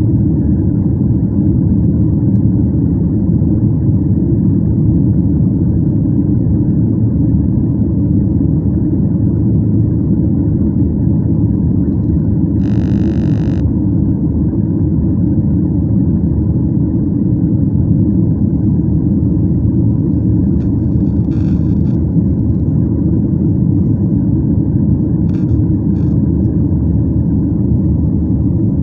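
Steady, low cabin noise of a jet airliner in flight, heard from inside the cabin by a window. A short high-pitched tone lasting about a second comes near the middle.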